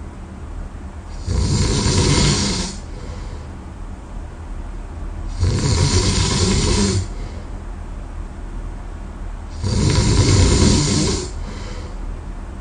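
A man snoring in his sleep: three loud snores about four seconds apart, each lasting about a second and a half, with quieter breathing between them.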